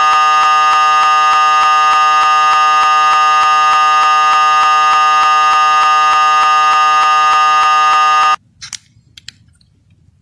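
Loud, steady, unchanging buzz with many overtones: the crashed Windows 7 virtual machine's sound stuck looping its last audio buffer on the blue screen. It cuts off suddenly about eight seconds in as the machine resets, leaving a few faint clicks.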